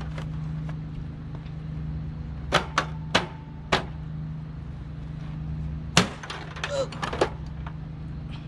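A series of sharp knocks and clatters from the window air conditioner's casing and grille being handled, as the unit and an impact drill are nearly dropped. The hits come in two clusters, the loudest about six seconds in, over a steady low hum.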